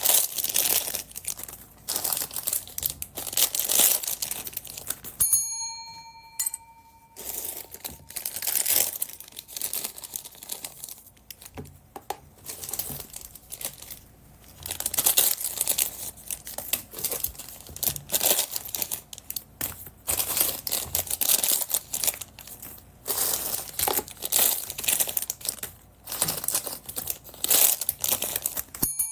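Plastic packaging bags crinkling and rustling, handled over and over, with bursts of tearing-like noise. A short bell-like ding rings out about five seconds in.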